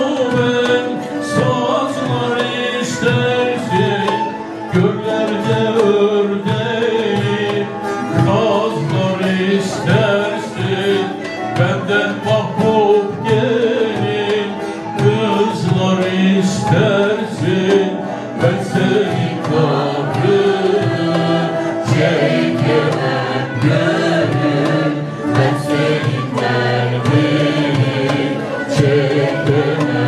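Live Turkish folk music: bağlama (saz) strummed in a fast, steady rhythm, with a male voice singing.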